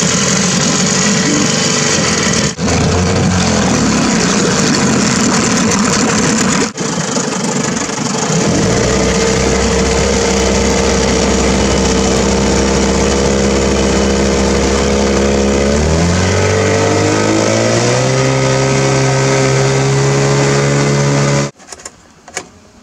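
Small outboard kicker motor running on a pontoon boat's transom, in gear and pushing water. About 16 seconds in, its pitch rises as it is throttled up, then holds steady until the sound cuts off sharply near the end.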